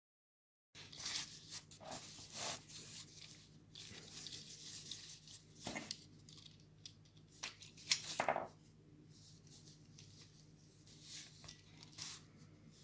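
Intermittent scraping and rustling noises, a louder cluster just past the middle, over a faint low steady hum.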